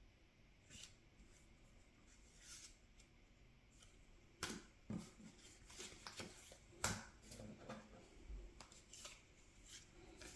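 Trading cards being handled: a few faint slides and clicks, then a run of sharper clicks and short rustles of cards sliding against each other in the second half.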